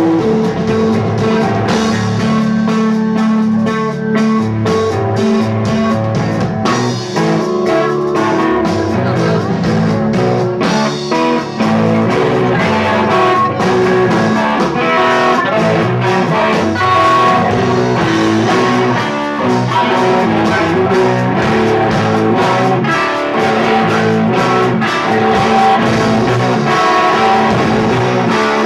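Rock trio playing live: electric guitar, bass guitar and drums together, with frequent drum hits.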